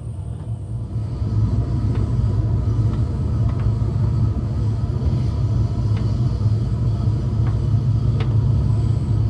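Steady low rumble of an Amtrak passenger train under way on the rails, with a few scattered light clicks; it gets louder about a second in.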